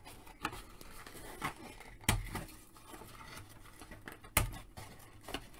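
Metal scissors snipping paper twist-tie tie-downs on a cardboard insert: a handful of short, sharp snips and taps spread across a few seconds, two of them louder, like knocks.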